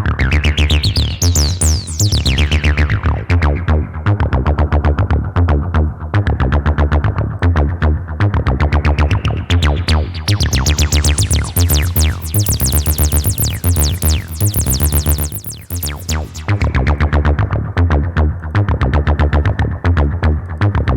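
Fast acid bassline on a TB-303-style synth, run through tape-saturation distortion (soft clipping that adds harmonics). A resonant filter sweeps open and shut: a short bright sweep near the start, then a longer one that opens wide through the middle and closes again.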